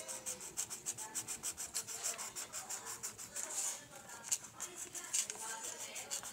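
Coloured pencil scribbling on notebook paper in rapid back-and-forth strokes, several a second, shading in black.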